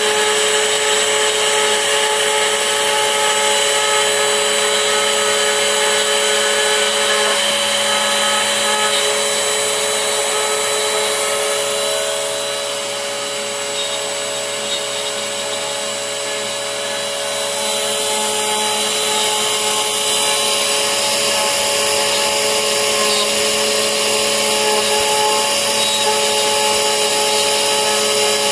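A 3040 desktop CNC router's spindle running, its end mill cutting a pocket in particleboard: a steady whine over a rushing noise, a little quieter about halfway through.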